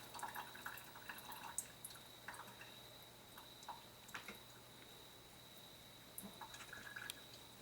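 Faint dripping and small splashes of salty brine draining off cucumber slices, busiest in the first couple of seconds and then only occasional drips.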